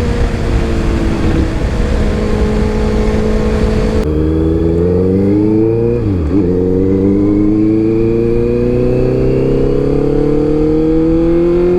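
Honda CBR650F inline-four with an Arrow full-system exhaust, ridden under hard acceleration, its engine note climbing steadily. About six seconds in the pitch dips sharply and picks up again, as at an upshift, then keeps rising.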